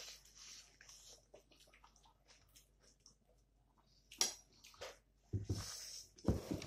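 Close-up eating sounds: wet squishing of rice and curry being mixed by hand, with chewing and lip smacks. There are a few sharp clicks about four seconds in, and a run of louder wet smacks near the end.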